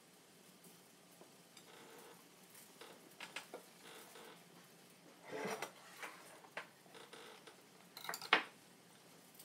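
Light, scattered clinks and knocks of a kitchen knife and ceramic plates on a tabletop while blanched cabbage leaves are pulled off the head and laid out; the loudest knocks come about five and a half and eight seconds in.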